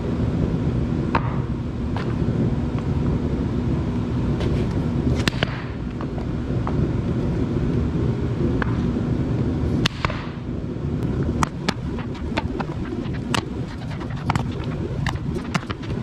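Steady low rumble of a torpedo heater running, with scattered light clicks and taps of metal parts and tools being handled during the motor's disassembly, more frequent in the second half.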